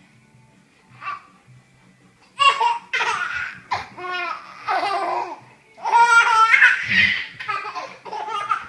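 A young child laughing in repeated high-pitched bursts, starting with a short burst about a second in and breaking into sustained fits of laughter from about two and a half seconds on.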